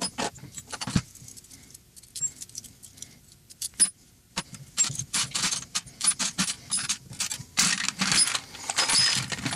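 Disassembled Glock 27 pistol parts clicking and clattering as they are placed into a clear plastic dish. Scattered clicks at first, then a quieter stretch, then a dense run of clatter in the second half.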